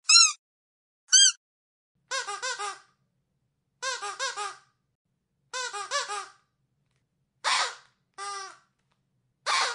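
Rubber squeaky dog toy being squeezed: two single squeaks, then three quick runs of several squeaks each, then a few hoarser squeaks near the end. Each squeak rises and falls in pitch.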